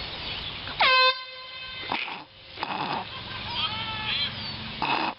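One short, very loud blast of a handheld canned air horn about a second in, lasting about a third of a second and sweeping up in pitch as it starts.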